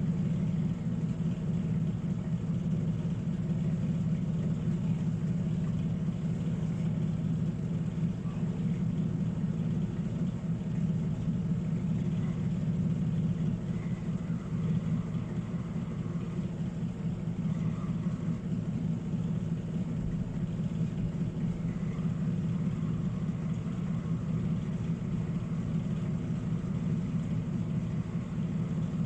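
A steady machine hum with a low drone, holding an even pitch and level throughout.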